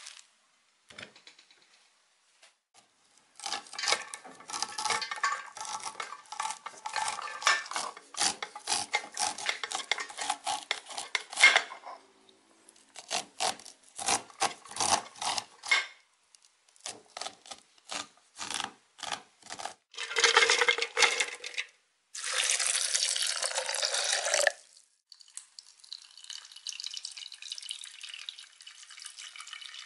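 Knife slicing the kernels off a fresh corn cob against a plate: long runs of quick scraping, crunching strokes, then slower single cuts. Two short bursts of steady noise follow, then a soft steady hiss as corn purée is poured over the kernels in a pot.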